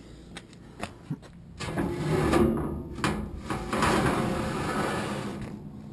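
Metal dumpster's sliding side door being dragged open: a few light knocks, then a long grating metal scrape, coming in surges from about a second and a half in and fading out near the end.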